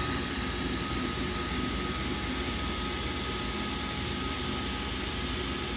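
Steady running noise of a shop air compressor, with a thin steady tone above it. A CNC router's gantry is jogging along the y-axis with its spindle off, but it is too quiet to be heard over the compressor.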